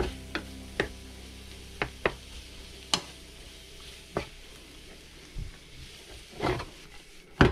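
Wooden spatula knocking and scraping in a non-stick frying pan as rice and egg are stir-fried, about ten sharp, irregular taps over a faint sizzle. The spatula is breaking up clumps of warmed rice.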